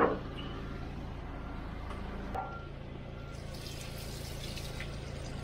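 Rainwater gushing out of an inflatable dinghy's transom drain and splashing onto gravel once the drain plug is pulled, the splashing growing stronger about three and a half seconds in. A brief sharp sound at the very start as the plug comes out. The water is from heavy rain the night before that filled the boat.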